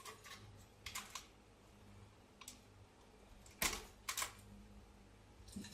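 Sharp plastic and metal clicks and knocks of computer hardware being handled and unclipped inside a PC case, coming singly and in pairs, the loudest a close pair about two-thirds through.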